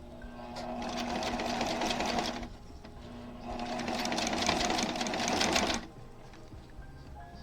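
Domestic sewing machine stitching a quarter-inch seam through quilting cotton in two runs, with a short stop between them. Each run picks up speed and gets louder as it goes.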